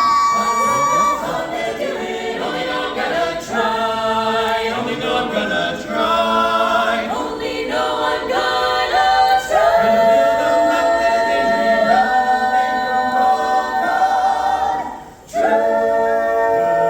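A cappella vocal group singing in close harmony, several voices moving together from chord to chord. A brief break about fifteen seconds in, then a held chord.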